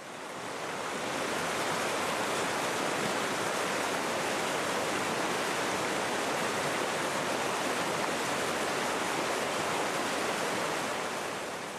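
Steady rushing of flowing river water, an even hiss with no surges, fading in at the start and out near the end.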